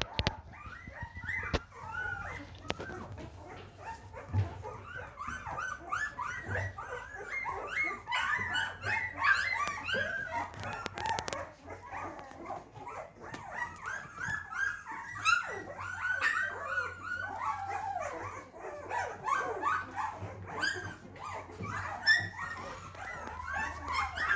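Young Golden Retriever puppies squeaking and whimpering while they nurse, many short high squeals overlapping one another.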